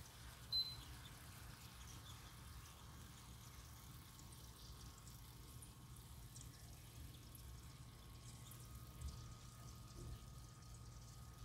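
Faint sizzling of beef steak and green beans frying in a pan, with scattered small crackles over a low steady hum. A short sharp click comes about half a second in.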